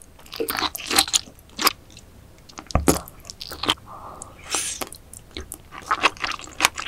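Close-miked eating sounds of a person biting and chewing raw oyster topped with salmon roe: a run of sharp wet clicks and pops between chews.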